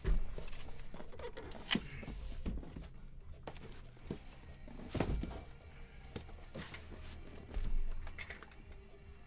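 A cardboard shipping case of sealed card boxes being handled and set down: several thumps and cardboard scrapes and rustles, the loudest thump about five seconds in.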